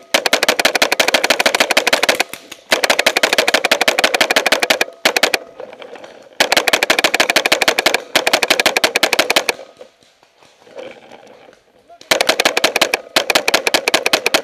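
Tippmann X7 Phenom paintball marker firing on full auto, four long bursts of rapid shots with a pause of about two seconds late on.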